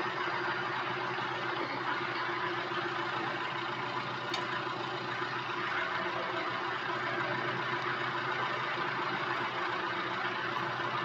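Excavator engine running steadily at an even speed, with no revving.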